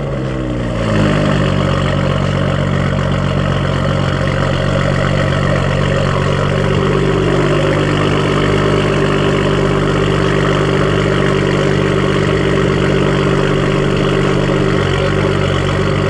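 BMW N55 3.0-litre turbocharged inline-six in an E92 335i, with muffler and resonator deleted, settling from its start-up flare in the first second and then idling steadily and loudly.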